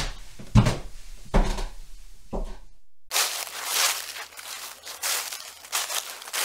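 Footsteps climbing stairs, a heavy thud at each step, cut off about three seconds in by footsteps walking through dry leaves, a crunch and crackle with each step.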